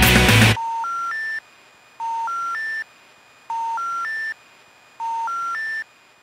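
Band music cuts off about half a second in. Then the telephone special information tone, three rising beeps in a row, plays four times, about every second and a half. It is the signal that precedes a 'number not in service' intercept message.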